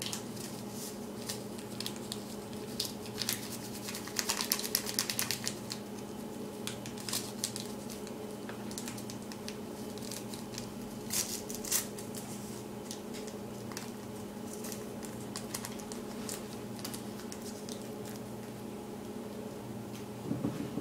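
A small paper packet of Truvia sweetener being torn open and handled, giving a run of crisp crackles and ticks that are densest about four to six seconds in, over a steady low hum.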